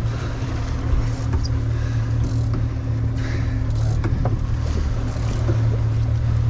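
Fishing boat's engine running steadily under way, a constant low hum with a hiss of wind and water over it.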